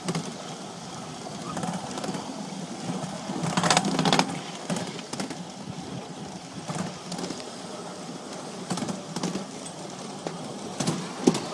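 Running noise of a park trolley ride heard from on board: a steady rumble with scattered knocks, a burst of clattering about four seconds in and a sharp knock near the end.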